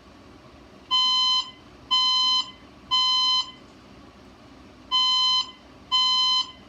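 Fire alarm evacuation speaker sounding the temporal-three evacuation tone: three half-second beeps a second apart, a two-second pause, then two more beeps as the next group of three begins. This pattern is the standard signal to evacuate the building.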